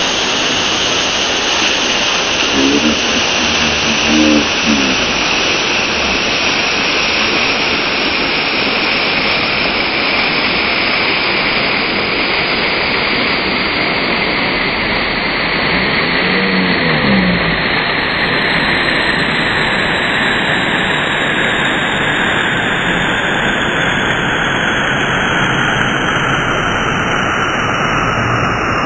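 Steady loud rushing of a waterfall, a dense hiss whose brightest part slowly sinks in pitch. There are short voice-like calls about three to five seconds in and again around sixteen seconds.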